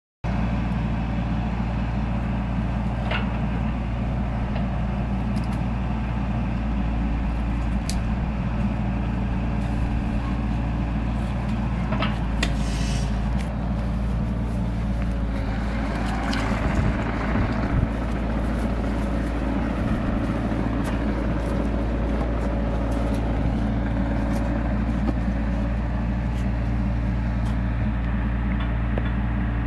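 Mini excavator's diesel engine running steadily as the machine travels on its tracks, with a few sharp clicks and knocks along the way.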